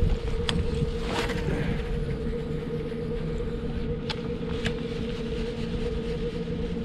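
Torqeedo electric outboard motor humming steadily at low throttle, matched to the current to hold the kayak in place. Wind rumble on the microphone underneath, with a few sharp clicks.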